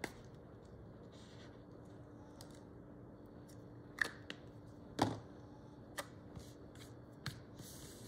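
Light handling of stickers, paper and small craft tools on a desk: about seven scattered sharp clicks and taps, the loudest about four and five seconds in, over a faint steady hum.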